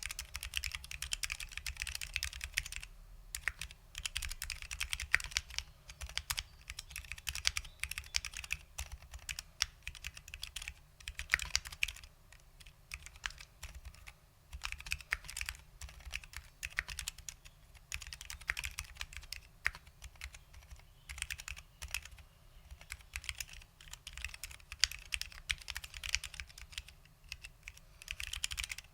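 Typing on a custom 60% mechanical keyboard with lubed SKCL Green Alps switches and doubleshot ABS keycaps: a fast, uneven run of sharp key clicks, broken by a few short pauses.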